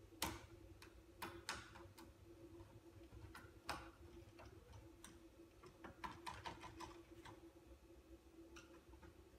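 Scattered light clicks and taps of a screwdriver and screws against the iMac G3's metal and plastic parts as the screws are worked in, over a faint steady hum.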